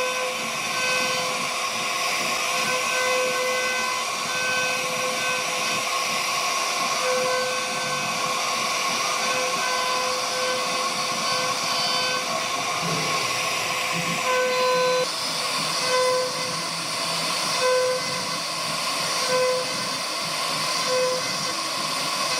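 CNC router spindle whining steadily while cutting wood, with a hiss over it. The whine swells briefly at irregular moments, about every second or two in the second half.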